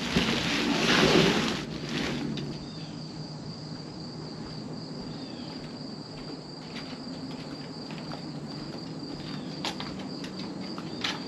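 A loud rustle for about the first two seconds as the plastic-wrapped seat is handled, then a steady chorus of insects with a thin high tone, and a few light knocks near the end.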